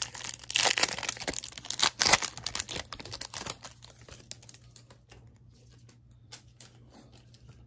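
Foil wrapper of a Topps Chrome baseball card pack being torn open and crinkled, loud and crackly for about the first three and a half seconds. Then quieter soft clicks and rustles as the cards are slid out and handled.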